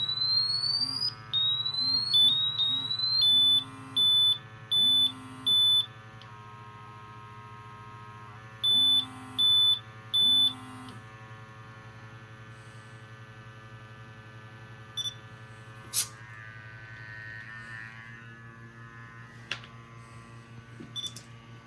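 BW Technology GasAlert XT II gas monitor alarming: high-pitched beeps and short rising chirps, each with a low buzz under it, over the steady hum of its sampling pump for about the first ten seconds. After that only the pump's hum remains, with a few clicks. This is the kind of alarm expected while a freshly replaced O2 sensor reads wrong before calibration.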